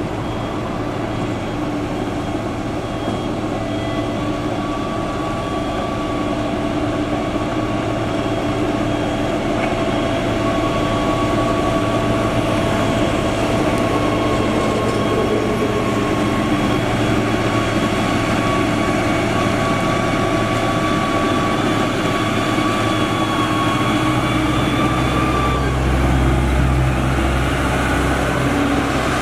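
Diesel engine of a Changlin PY190H motor grader running steadily as it grades, with a steady whine over the engine hum. A heavier, deeper rumble sets in near the end as the grader comes close.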